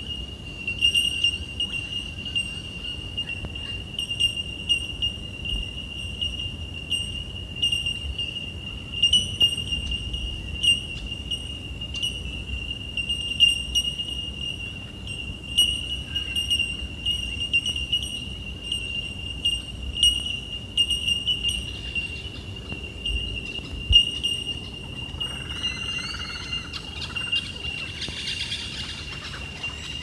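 A steady, high-pitched insect drone with regular small pulses. Near the end, birds start chirping over it.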